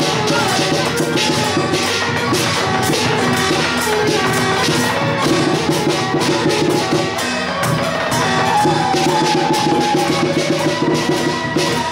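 Loud music with a fast, steady percussion beat under a held melody line.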